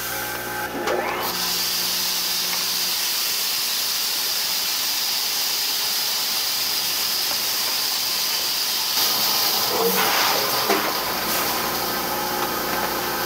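Automatic rice weighing-and-bagging machine running, with a steady hiss of rice grains pouring through the feed into a 4 kg plastic bag.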